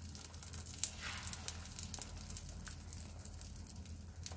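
Egg-battered pollack fillets frying in oil in a hot pan: a steady sizzle with frequent small crackles and pops, over a steady low hum.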